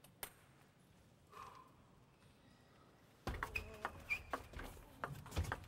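Table tennis rally beginning about three seconds in: irregular sharp clicks of the celluloid ball off bats and table over hall noise, with a few short squeaks.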